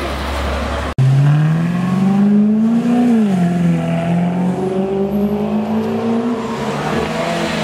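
Car engine revving as it drives past: after a brief dropout about a second in, its pitch climbs for about two seconds, falls back sharply, then holds steady.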